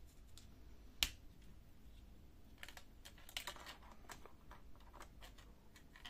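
One sharp click about a second in, then faint scattered clicks and rustles: gloved hands handling the ribbon cable and plastic parts inside an opened laptop.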